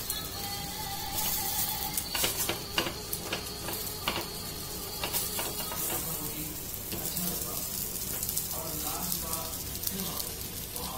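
Baati dough balls being turned over by hand in a hot oiled appe pan: irregular soft knocks and scrapes of the balls against the pan's cups over a light sizzle.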